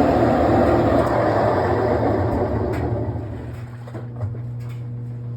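GE washing machine running with a loud rushing noise from its worn tub bearings, which the owner believes are going out. About three seconds in the noise dies down, leaving a steady hum.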